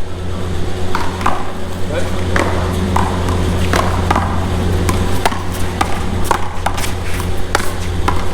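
Sharp hollow smacks of a paddleball ball against wooden paddles and the wall, coming irregularly and several in quick succession in the second half, over a steady low hum and distant voices.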